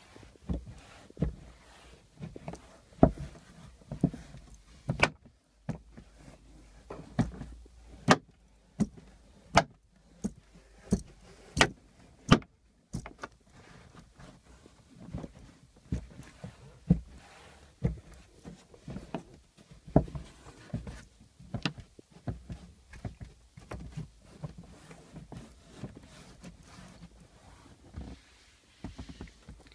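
Plastic fasteners of an Audi A2's tailgate trim panel popping into their holes as the panel is pressed on by hand: a long irregular run of sharp pops and knocks, the loudest ones in the first half, with rubbing and handling of the panel between them.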